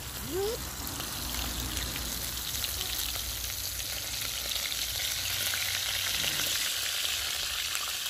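Hot oil sizzling steadily with fine crackles as pieces of bird meat fry in a small pot, stirred with a fork.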